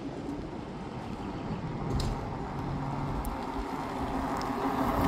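Electric bike's motor humming as it is ridden, a steady low hum that grows louder near the end as it comes closer.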